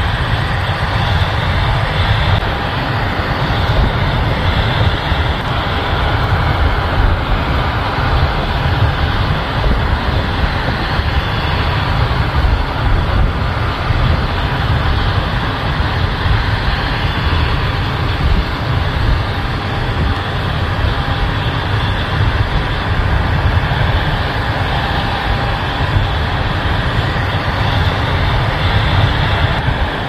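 John Deere S680 combine harvesting corn while unloading on the go, with a John Deere 8R tractor pulling a grain cart alongside: the diesel engines and threshing machinery run in a steady, continuous drone with a heavy low rumble.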